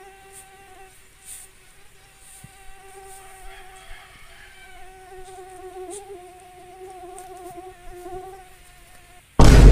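Mosquito buzzing: a thin, steady whining hum that wavers slightly in pitch. Near the end it is cut off by a sudden, very loud burst.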